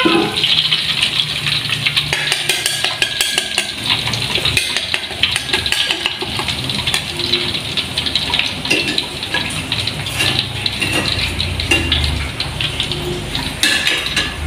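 Battered banana pieces deep-frying in hot oil in a wok, sizzling steadily, with wooden and metal spatulas scraping and clicking against the pan as the pieces are turned and lifted out.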